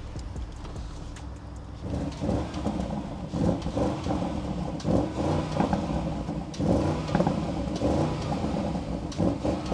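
Audi RSQ8's twin-turbo 4.0 V8 through its stock exhaust and stock downpipes, which still carry the petrol particulate filters and catalytic converters: idling steadily, then revved in a series of short throttle blips from about two seconds in.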